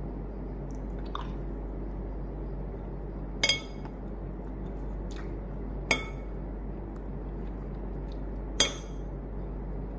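A metal spoon clinking against a ceramic plate three times, a few seconds apart, each clink ringing briefly, over a steady low hum.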